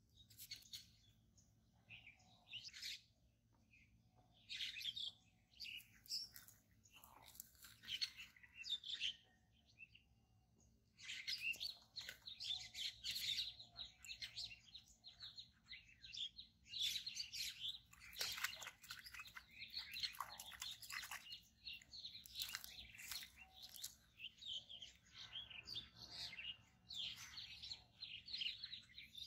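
Small songbirds chirping and calling in quick runs of high notes, sparse at first and almost continuous from about a third of the way in.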